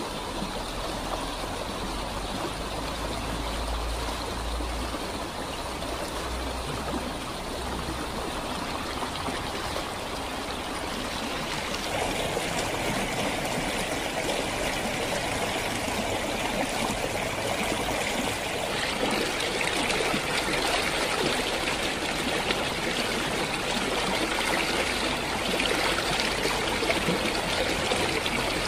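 Shallow, rocky stream rushing over stones in a steady wash of water noise, growing louder and brighter about twelve seconds in and again around twenty seconds in, where the water runs over rocks close by.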